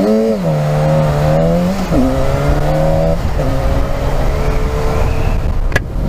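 Sport motorcycle engine pulling steadily while riding, its pitch stepping down twice, about two seconds in and again a second later, as it shifts up, over wind rush. A short sharp click near the end.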